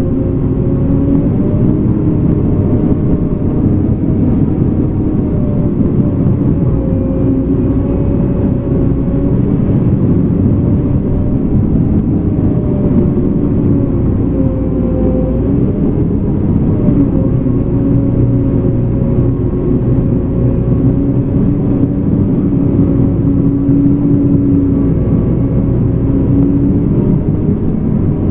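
Caterpillar D5K2 crawler dozer's four-cylinder diesel engine running steadily, its pitch wavering slightly.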